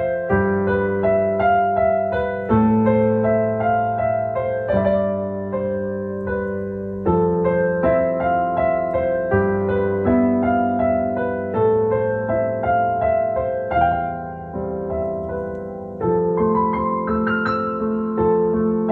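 Solo piano music, a gentle flowing melody of struck notes over sustained chords.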